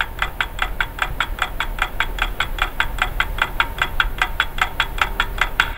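Rapid, even clock-like ticking, about six ticks a second, over a low hum, cutting off suddenly at the end.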